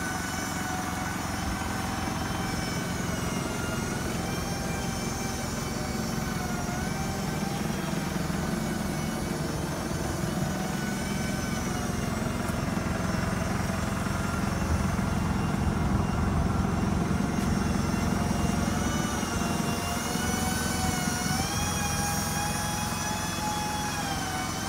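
Mitsubishi Canter's 4M50 turbodiesel engine idling steadily, a low rumble with a steady whine over it that wavers slightly in pitch.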